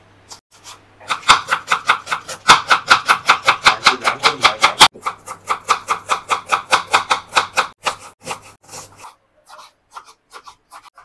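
Kitchen knife chopping vegetables on a wooden cutting board: rapid, even strokes about eight a second, slowing to scattered cuts and taps near the end.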